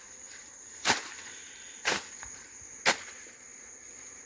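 Three sharp knocks about a second apart, struck on the beehive's roof as it is being opened, over a steady high insect trill.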